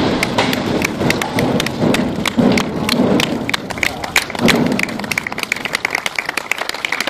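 The rumble of the blast that breaks through a tunnel's last rock wall dies away over the first few seconds. A crowd starts clapping and shouting, and the applause becomes the main sound through the second half.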